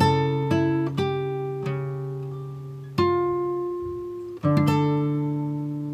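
Background music on acoustic guitar: plucked notes and chords struck and left to ring out, with new chords about three seconds and four and a half seconds in.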